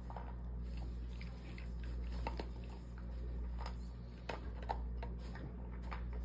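A beagle crunching dry kibble from a stainless steel bowl, a run of irregular crunches and small clicks as it chews and picks up more food.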